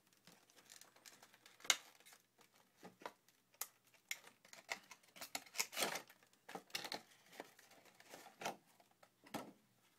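Clear plastic packaging crinkling and snapping as a cardboard sleeve is worked out of it by hand: a string of sharp crackles and clicks, with the loudest snap a little under two seconds in.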